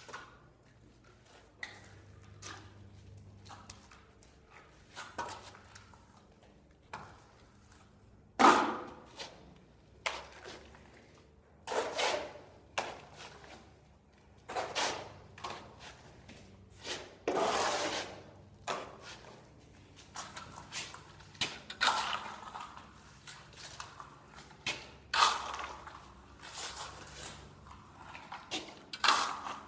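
Plastering trowel sweeping and scraping across a wall as white set finish plaster is spread, in irregular strokes of about a second each, with sharp clicks and knocks between them.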